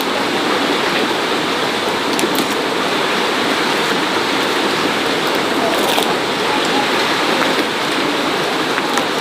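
Steady rush of running water, with a few faint clicks on top.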